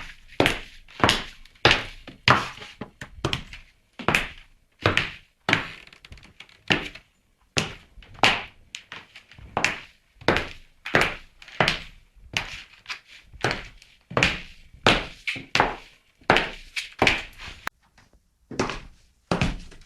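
High-heeled shoes striking a hard floor in a walking rhythm of about two steps a second, each a sharp click with a short room echo, with a few brief pauses between runs of steps.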